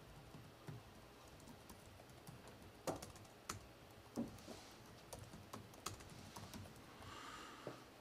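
Faint, irregular typing on a computer keyboard: scattered single keystrokes and clicks with pauses between them.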